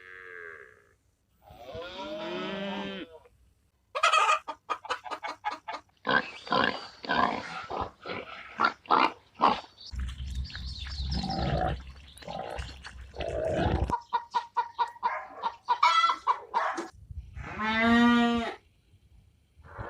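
Chickens clucking in rapid runs of short calls, with a couple of longer drawn-out pitched calls, one near the start and one near the end.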